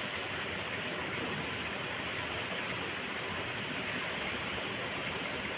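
Steady rain falling on a concrete courtyard: an even, unbroken hiss.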